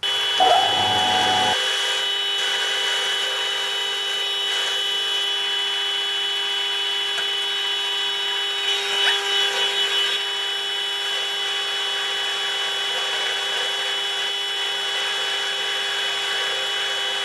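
Home-built Gingery milling machine starting up and running with a steady high whine. The sound wavers briefly about nine seconds in.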